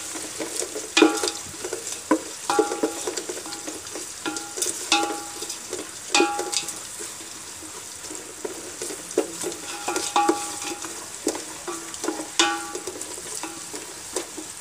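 Sliced onions sizzling as they fry in oil in a metal pot, stirred with a ladle that scrapes and knocks irregularly against the pot, each knock ringing briefly.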